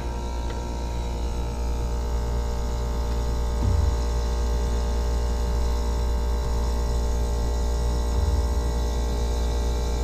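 ClimateMaster geothermal heat pump running in cooling mode: a steady, unchanging hum from its scroll compressor and blower.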